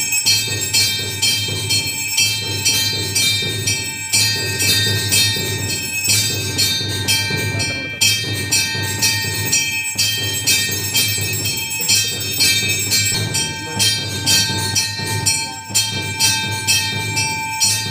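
Temple bells rung continuously in a quick, even rhythm, a steady ringing tone held beneath the strokes: bells rung during puja at the shrine.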